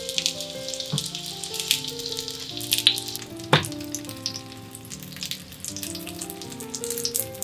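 Starch-coated salted mackerel fillets frying skin-side down in oil in a square tamagoyaki pan, a steady sizzle full of small crackling pops. One sharp louder knock comes about three and a half seconds in. Soft piano music plays underneath.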